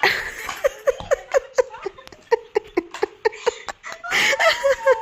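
A woman laughing hard, a quick run of short ha-ha pulses about four a second, ending in a louder, breathier burst of laughter.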